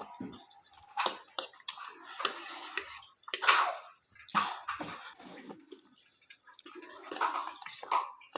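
Wet slurping and eating sounds of noodles being eaten, coming in irregular bursts with small clicks.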